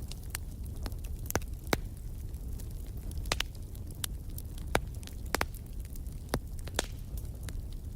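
Wood fire burning in a fireplace: a steady low rumble of flames with sharp, irregular crackles and pops, a dozen or more, the loudest about a second and a half in and near the middle.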